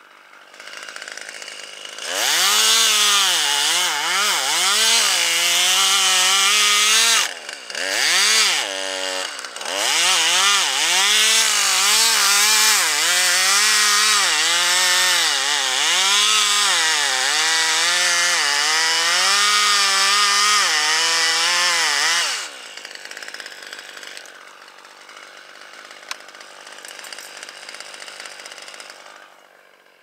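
Small top-handle chainsaw cutting through a gum tree trunk at full throttle, its pitch dipping and recovering as the chain bites under load. It eases briefly about seven seconds in, cuts again, then drops off about 22 seconds in.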